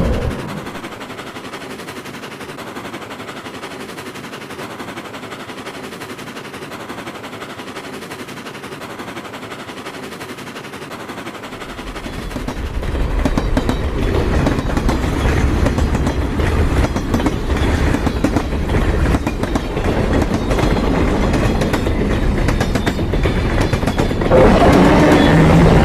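Train sound effect: a soft hiss, then from about twelve seconds in the rumble and rhythmic clacking of a passing freight train swell up and grow loud. Near the end it gets louder still, and a steady low tone joins in.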